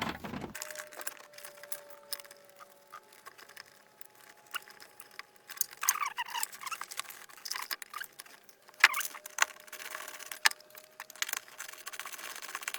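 RCA cables being pushed and pulled under car carpet and around the seat mountings: scattered rustles, scrapes and plastic clicks, with a sharp click about nine seconds in.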